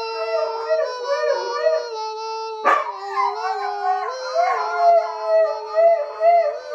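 Siberian husky howling in long, held notes, the 'singing' howl of a dog joining in with a tune. The pitch steps down about two and a half seconds in and back up a second and a half later, with a sharp click at the step down.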